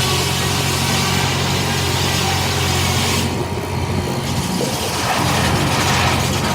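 Portable sawmill belt-driven by a 13 HP 1901 Russell steam tractor, running: a steady low hum under a broad rushing noise that eases off about three seconds in and swells again near the end.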